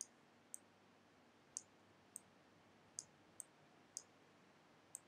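About eight faint, sharp, high clicks at irregular intervals of half a second to a second: a pen stylus tapping down on a drawing tablet as a word is handwritten.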